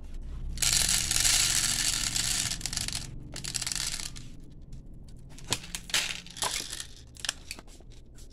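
Electric automatic toy pellet gun firing: a dense rattling buzz of about two and a half seconds, then a shorter burst. Scattered clicks of handling follow in the second half.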